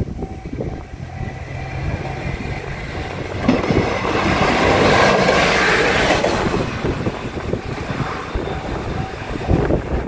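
A diesel railcar runs over a level crossing. Its rail noise builds about three seconds in, peaks near the middle and fades away, while the crossing's warning bell keeps ringing underneath.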